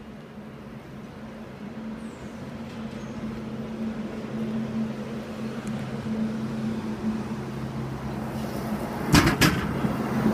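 Diesel engine of a track tamper approaching the level crossing, its steady hum growing louder as it nears, with two sharp knocks about nine seconds in as it reaches the crossing.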